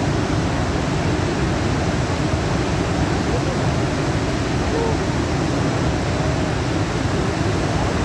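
Steady roar of Niagara's Horseshoe Falls: a loud, even rushing noise, heaviest in the low range.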